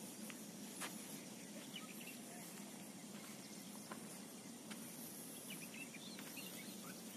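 Faint outdoor ambience: a steady low background hum with scattered short bird chirps and a few small clicks.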